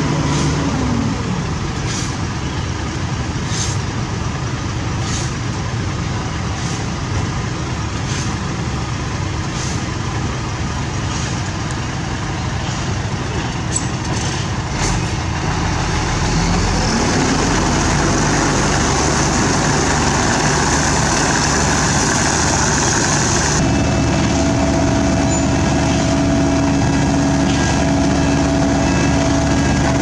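Diesel engines of a Hino 500 dump truck and a Sumitomo HA60W asphalt paver running while the truck tips asphalt into the paver. Engine speed drops about a second in and climbs again around seventeen seconds in, with a light click about every second and a half through the first half. About two-thirds of the way through, the sound shifts abruptly to a steadier hum.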